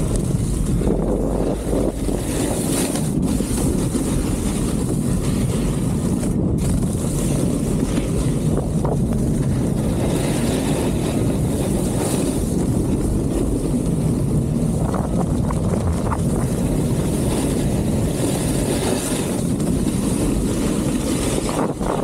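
Steady wind buffeting the camera microphone as a snowboarder rides fast down a groomed piste, with the hiss of the snowboard sliding over packed snow.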